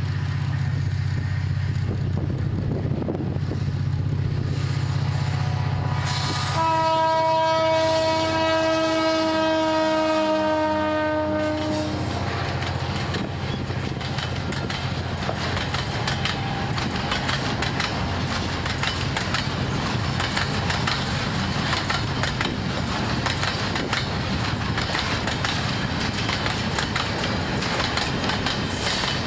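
Diesel freight locomotive approaching with a low engine drone, then sounding its horn for about five seconds, the note falling slightly in pitch as it passes. After that, a long string of freight hopper cars rolls by with steady wheel and rail-joint clatter.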